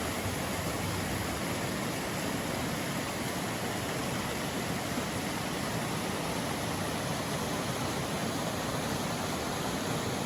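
Swollen spring creek rushing over rocks in rapids: a steady, even rush of water.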